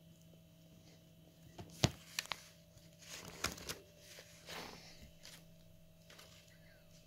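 A cat pawing and tugging at a diary and its strap: a sharp tap about two seconds in, two lighter clicks just after, then several bursts of scratchy rustling.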